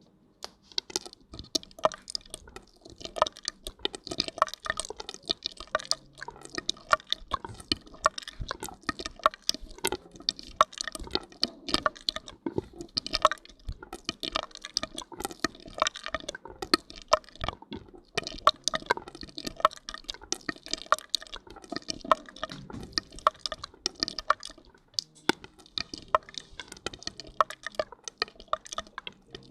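ASMR hair-washing sounds: shampoo lather being worked, giving a dense, irregular stream of small wet pops, crackles and squishes that eases briefly near the end.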